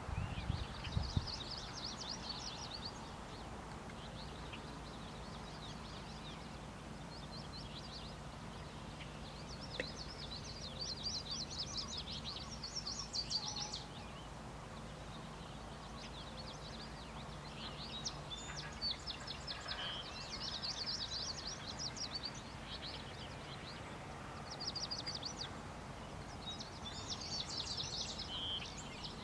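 Songbirds singing in short, rapid trilled phrases that come one after another with brief gaps, over a faint steady low hum.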